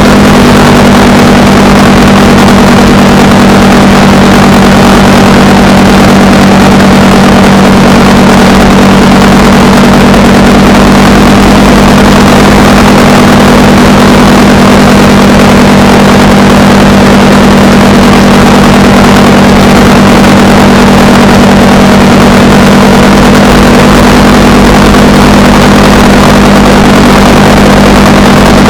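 Honda Rebel 300's single-cylinder engine running at a steady, unchanging speed while riding, loud, with a steady hiss of wind noise over it.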